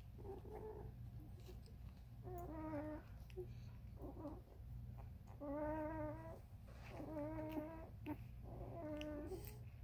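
Thirteen-day-old Vizsla puppies whimpering while asleep: about five or six short, slightly wavering whines, each under a second, with a low steady hum beneath.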